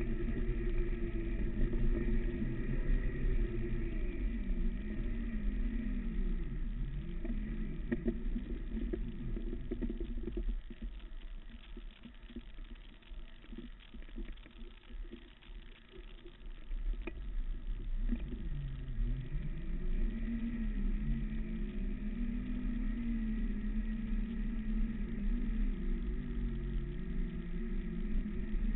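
Segway x2's electric drive motors whining, the pitch rising and falling as speed changes, over a low rumble. About ten seconds in it drops quieter for several seconds, then picks up again.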